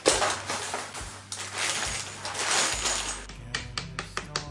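Cardboard and plastic packaging rustling and scraping as a flat-pack desk is unpacked. Near the end come a quick run of small clicks and knocks, as of hardware being handled. Soft background music plays underneath.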